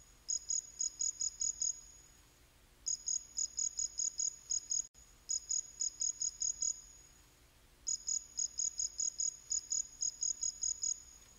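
A cricket chirping: four trains of quick, evenly spaced high-pitched pulses, about five a second, with short pauses between trains.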